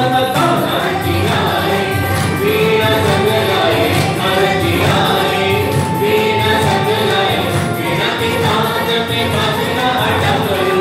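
Hindu devotional bhajan sung in chorus by a group of women, with a steady beat of hand-clapping from the gathering.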